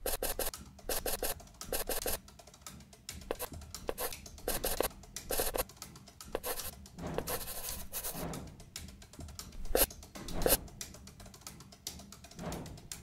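A scratchy writing sound effect: a run of quick pen strokes on paper, several a second, that come in short clusters. In the second half there are a few longer, softer sweeping strokes.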